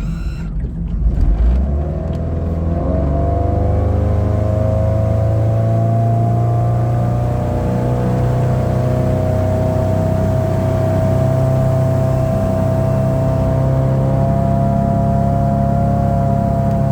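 A 1991 Sea Ray's four-cylinder boat engine, freshly tuned with a rebuilt carburettor and adjusted points and timing, running under throttle. Its note rises gradually from about three seconds in and then holds steady.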